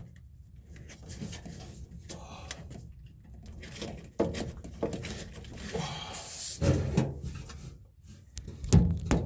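Hands fitting hoses and clamps onto a washing machine's drain pump: irregular knocks, clicks and rustles of plastic and rubber parts being handled.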